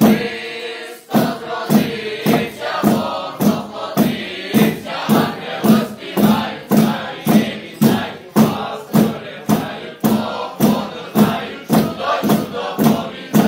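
A group of carolers singing a Christmas carol (koliadka) over a steady beat of sharp thumps, a little over two a second, that starts about a second in.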